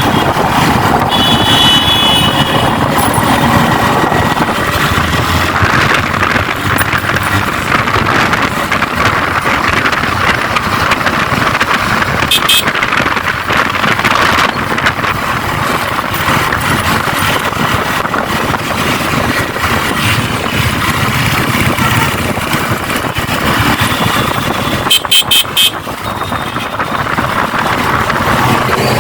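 Motorcycle riding through traffic: steady road and wind noise throughout, with horns tooting briefly near the start, about twelve seconds in and again near the end.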